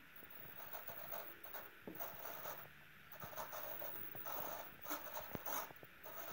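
Tiny 5 g micro servos whirring faintly in short, irregular bursts, several times, as they move the glider's tail control surfaces; the loudest bursts come about five seconds in.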